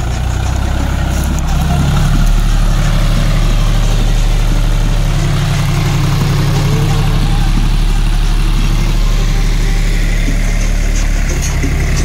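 John Deere 40 hp tractor's diesel engine running steadily while pulling a chisel plough through the soil. Its note changes and it gets louder about two seconds in, then changes back near the end.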